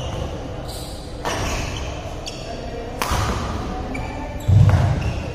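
Badminton singles rally: rackets striking the shuttlecock with a sharp crack about every one and a half seconds, shoes squeaking briefly on the court mat, and a heavy thud of a player's landing about four and a half seconds in, with the echo of a large hall.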